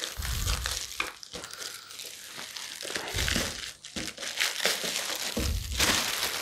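Clear plastic wrapping bag crinkling and rustling as it is pulled up off a slow juicer's motor base, with a few dull low bumps from handling.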